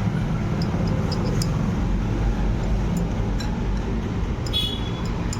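Steady low background rumble, with a few light metallic clinks of hand tools being handled and a brief high squeak near the end.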